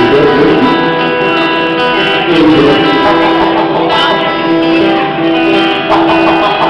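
Acoustic guitar strummed, with a man singing over it in short phrases.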